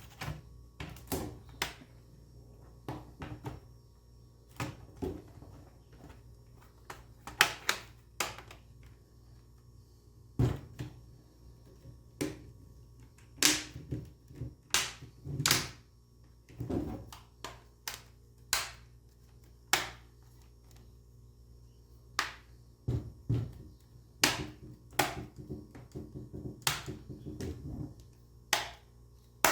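Plastic bottom cover of an Acer Aspire 515-52 laptop being pressed back onto the chassis, its snap-fit clips clicking into place in irregular sharp snaps and taps, some in quick runs.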